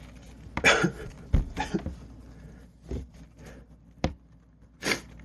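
A man sniffing and breathing sharply through his nose in a handful of short bursts, the strongest a little under a second in, with a couple of small knocks between them. It is the sound of a sneeze building that won't come out.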